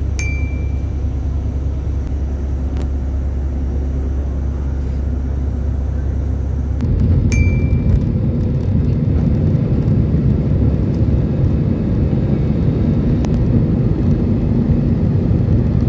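Apron bus engine running with a steady low rumble, then, from about seven seconds in, an airliner's jet engines at takeoff thrust on the takeoff roll and climb, heard from inside the cabin. A short ding sounds twice, near the start and just after the change.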